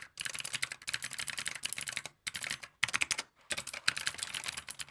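Fast, continuous typing on a loud computer keyboard, a dense clatter of key clicks with a few brief pauses. This is the owner's current keyboard, which people on Discord and his live stream complain is annoying.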